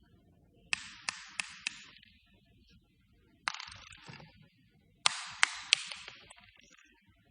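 A small hard ball bouncing on a hard floor, dropped three times. First it bounces four times, the bounces coming closer together; about three and a half seconds in comes a single hit with a short rattle; then it bounces three more times near the end. Each hit is a sharp click with a brief ringing tail.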